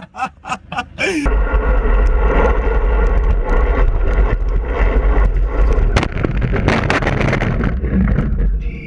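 Wind buffeting a camera mounted on a bicycle ridden at speed: a loud, steady low rumble. It is broken by a few sharp knocks about six and seven seconds in, as the bike crashes.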